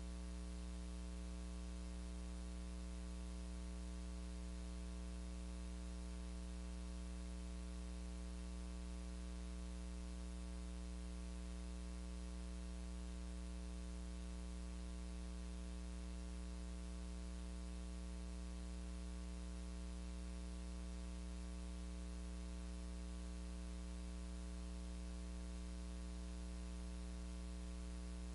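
Steady electrical hum with a stack of higher overtones over a constant static hiss, with no speech or music.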